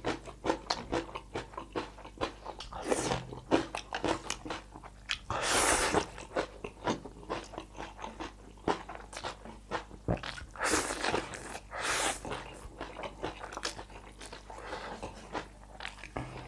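Close-miked eating of spicy instant noodles: wet chewing and mouth smacks in quick succession, broken by several longer slurps of noodles, about four over the stretch.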